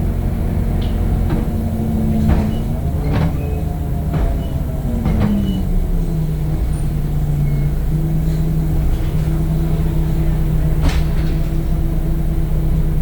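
Temsa Avenue LF 12 city bus under way, its DAF diesel engine and ZF gearbox giving a steady low rumble with a held whine that glides down in pitch about five seconds in and then holds at the lower pitch. Scattered knocks and rattles from the body come over it, the loudest about eleven seconds in.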